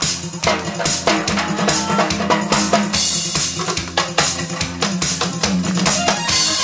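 Drum kit played with sticks: a fast, busy run of snare and tom hits, with steady backing music playing underneath.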